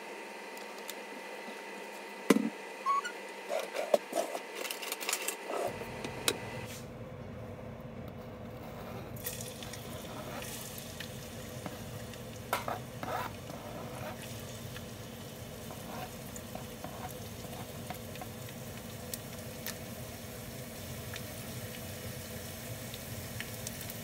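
A few knocks and clatters, then oil in a nonstick frying pan sizzling faintly and steadily. About twelve seconds in, chopped garlic is scraped off a plastic cutting board into the hot oil with a few clicks, and it goes on frying gently.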